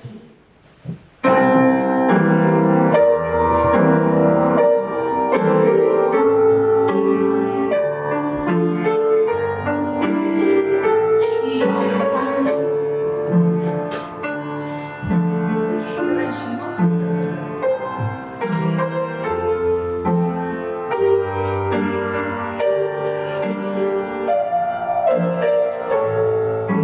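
Piano playing the accompaniment for a folk-dance barre exercise. It starts about a second in, with a regular bass beat and a few sharp taps over it.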